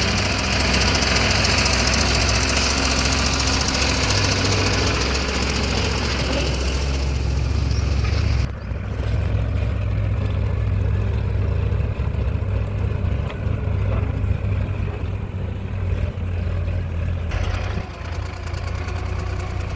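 Heavy diesel engine running steadily. It is louder, with a high-pitched whine on top, for the first eight seconds, then drops back abruptly about eight seconds in; the extra noise comes back near the end.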